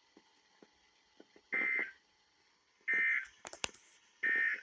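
Three short bursts of EAS digital data tone, the two-tone SAME end-of-message signal of a NOAA Weather Radio warning. Each burst lasts about a third of a second, about a second and a half apart, marking the end of the flash flood warning. A sharp click falls between the second and third burst.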